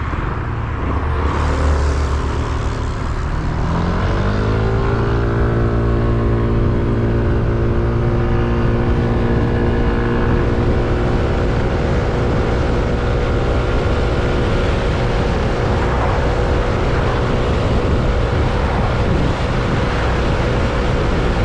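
Yamaha Smax 155 scooter's single-cylinder four-stroke engine rising in pitch as it accelerates over the first few seconds, then holding a steady drone at cruising speed. Underneath is a constant low rumble of wind and road.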